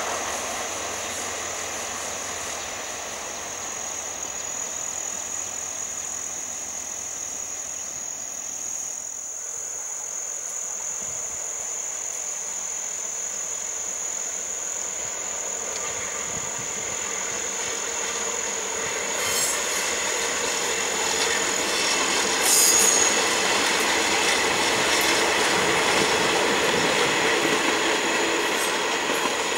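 Diesel passenger train running along the line, growing louder in the second half as it approaches and passes, with a couple of sharp knocks from the wheels. A steady high-pitched whine runs through the first part.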